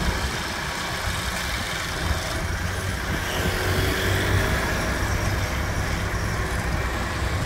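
Hidromek 102S backhoe loader's diesel engine running at low revs as the machine creeps along, a steady low rumble that swells slightly around the middle.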